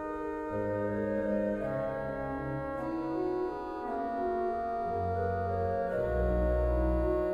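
Organ music: slow, sustained chords held over deep bass notes that change about once a second.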